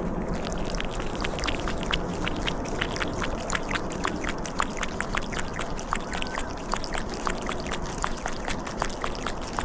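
Water trickling and babbling: a steady hiss with a dense run of small irregular clicks and drips.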